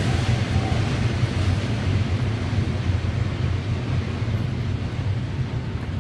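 JR Freight freight train rolling past on the rails, a steady low rumble that slowly fades as the train moves away.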